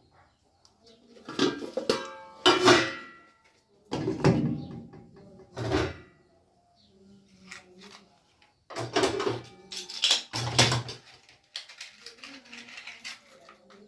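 Stainless-steel bowls and utensils knocked and set down on a steel gas stove and counter: several separate clanks, one of them followed by a brief metallic ring.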